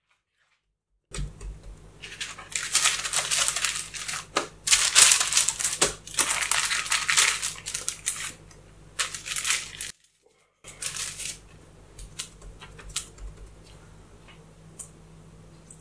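Hands working dough on a parchment-lined baking tray: the baking paper crinkles and rustles in dense bursts, with lighter scattered taps near the end. The sound cuts to silence briefly at the start and again about ten seconds in.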